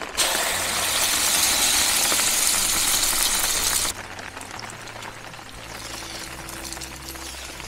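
Eggs poured into hot oil in a camping pot, sizzling loudly, then cutting off suddenly about four seconds in. After that there is a quieter sizzle with light scraping as the egg mixture is stirred in the pot.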